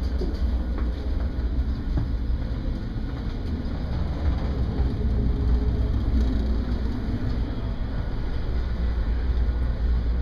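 Steady low rumble of a research ship's engines and machinery heard from inside the vessel, with a few faint knocks.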